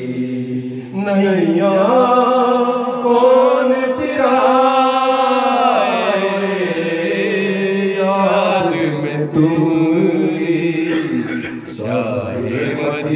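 A man's voice singing a naat, an Urdu devotional song in praise of the Prophet, in long held notes that slide and waver between pitches.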